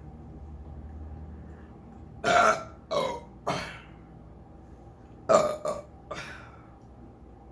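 A person burping loudly six times in two runs of three, about three seconds apart; the first burp of each run is the loudest and the rest trail off shorter.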